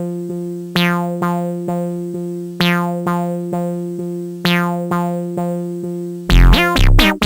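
Electronic background music: a synthesizer repeating plucked notes at an even pulse, each note dying away, then about six seconds in a louder section with a deep pulsing bass and beat comes in.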